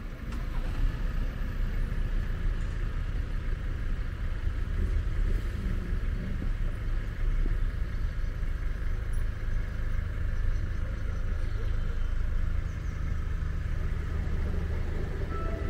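Steady low rumble of road or rail vehicles, with no clear changes, and a few faint steady high tones coming in near the end.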